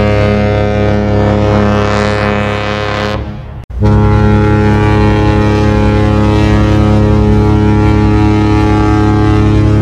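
Cruise ship AIDAnova's horn sounding a deep, steady blast that fades out about three seconds in. After a sudden cut, the horn of P&O's cruise ship Iona sounds one long, steady blast.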